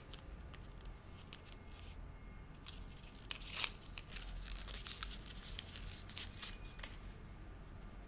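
A small foil sachet of a screen-cleaning wet wipe torn open by hand, with crinkling of the packet; the sharpest tear comes about three and a half seconds in, then the wipe is pulled out and unfolded.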